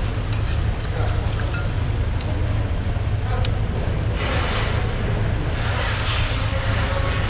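A knife scraping along the skin of a whole mahi-mahi in rasping strokes, about four seconds in and again near six seconds, after a few sharp knife clicks on the wooden cutting board. A steady low mechanical hum runs underneath.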